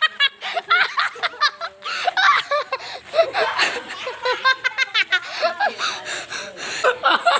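People laughing and snickering, in quick runs of short repeated laughing syllables.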